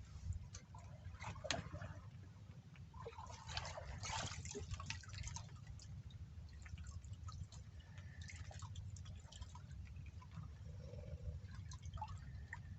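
Water dripping and splashing in short, irregular spatters, busiest in the first few seconds, over a steady low rumble.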